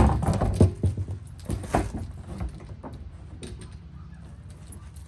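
Plastic hopper lid of a SaltDogg salt spreader being set on and worked into place: a quick run of hollow knocks and rattles over the first two or three seconds, then only a faint low hum.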